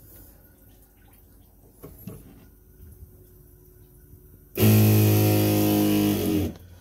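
Small electric water pump on a boat runs for about two seconds, a steady motor hum with rushing water. It cuts in suddenly and winds down as it stops.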